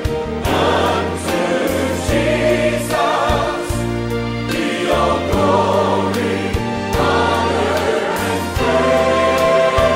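Background music with voices singing over sustained bass notes.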